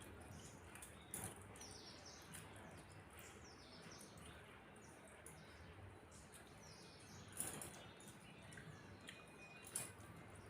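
Faint, quick high bird chirps repeating through the background, with three short clicks about one, seven and a half and ten seconds in.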